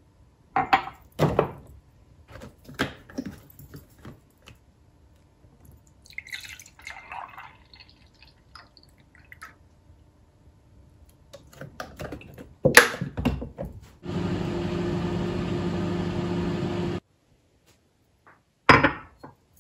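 Glass tumbler set down on a stone countertop with a couple of sharp knocks, then milk poured from a carton into the glass. Later come clicks and knocks of the glass and carton, a steady electric hum from a small appliance for about three seconds that starts and stops abruptly, and another knock near the end.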